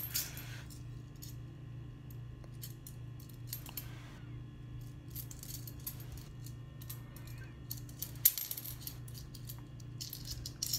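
Copper pennies clinking together as they are handled and slid one by one off a stack held in the palm, in light scattered clicks with one sharper click about eight seconds in.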